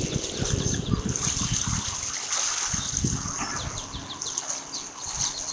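Garbled nest-cam microphone audio: an irregular crackling rumble with a steady high hiss over it, the distortion of a faulty camera sound feed. In the second half, a run of short high bird chirps comes through.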